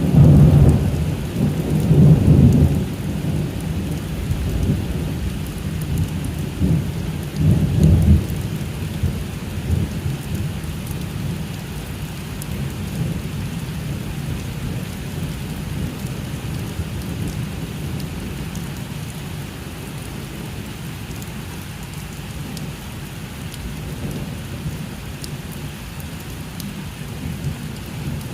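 Thunderstorm: heavy rolls of thunder in the first few seconds and again about seven seconds in, then a fading low rumble under steady rain.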